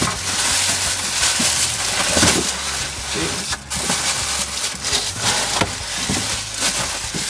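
Plastic wrapping crinkling and rustling as a bagged e-bike hub-motor wheel is handled and lifted out of a cardboard box, with short knocks and scrapes against the cardboard.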